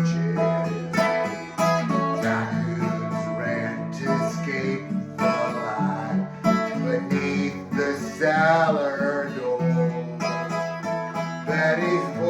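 Acoustic guitar music, with steady plucked and strummed chords and a wavering melodic line about eight seconds in.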